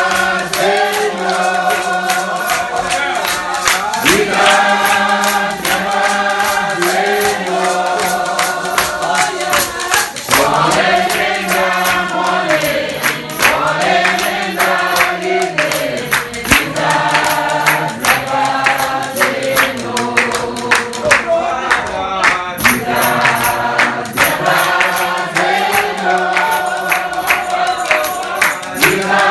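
A congregation singing a hymn together in unison, with many voices holding long notes, and a steady sharp beat keeping time throughout.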